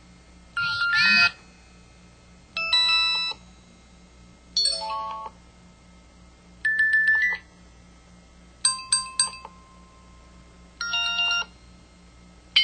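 KTF-T1000 mobile phone's built-in effect sounds previewed one after another through its speaker: six short electronic jingles about two seconds apart, each a different set of tones, some gliding and one a quick triple chirp.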